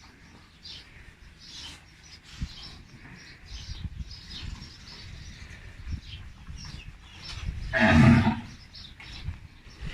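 A bull moos once: one loud call of about a second, near the end. Small birds chirp throughout.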